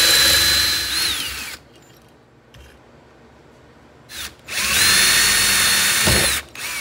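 Cordless drill/driver running twice in short bursts, each a high steady whine that winds down as the trigger is released, driving out the screws that hold the output transformer to the loudspeaker frame.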